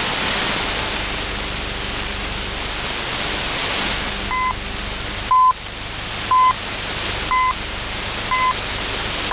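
Shortwave radio hiss and static from a receiver tuned to 5945 kHz, then a broadcast time signal: five short pips near 1 kHz, one a second, beginning about four seconds in, with the longer final pip that marks the hour starting just at the end.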